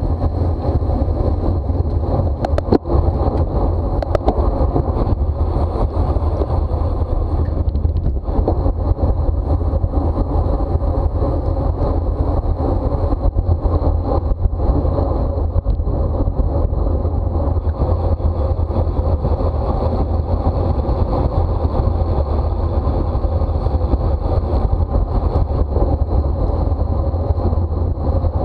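Steady wind rush over the microphone of a camera riding on a racing bicycle at speed, with a few sharp clicks about three and four seconds in.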